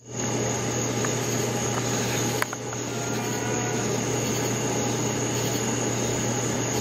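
Steady outdoor evening background: a continuous high insect trill over an even hiss and a low steady hum.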